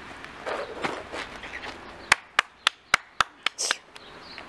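A quick, even run of six sharp clicks, about four a second, starting about two seconds in, followed by a short hiss.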